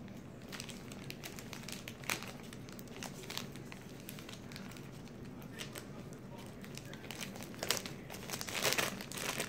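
A plastic bag crinkling in irregular crackles as it is handled and pulled open, with a few louder rustles near the end.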